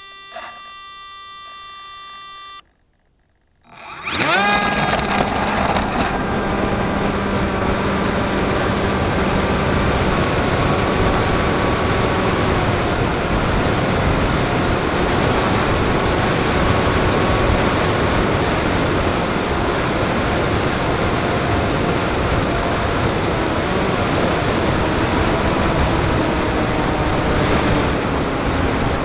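Sound from the onboard camera of a Bixler 3 fixed-wing RC airplane: a steady electronic beep lasting about two and a half seconds, a moment of near silence, then the electric motor and propeller spin up with a rising whine about four seconds in and settle into a loud, steady drone mixed with wind rush as the plane flies.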